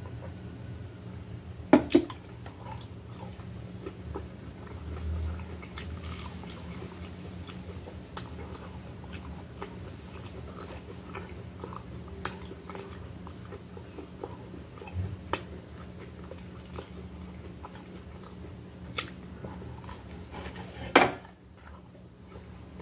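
Close-up eating sounds: biting and chewing a grilled salami sandwich, with faint scattered crunches and mouth clicks over a steady low hum. Two sharp knocks about two seconds in, and another near the end.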